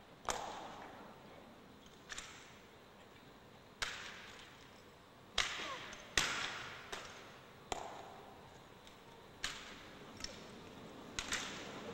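Sharp cracks and slaps of exhibition rifle drill: rifles being slapped by hands and struck in unison, about eleven single hits spaced irregularly a second or two apart, each ringing briefly in a large hall.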